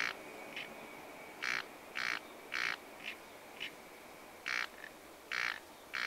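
A frog croaking at a garden pond: short rasping calls in runs of two or three about half a second apart, with fainter answering calls between the runs.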